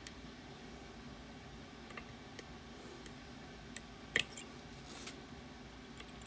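Ruko Garant lock being worked by hand with small tools: scattered sharp clicks, about eight in all, the loudest a quick double click about four seconds in.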